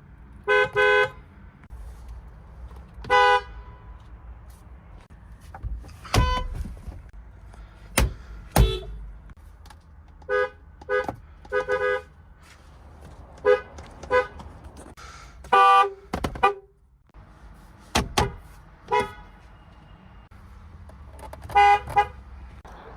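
A rapid string of short car horn honks, one car after another: single beeps, quick double and triple toots and a few longer blasts, each a pitched note with several overtones. A few sharp clicks fall between them.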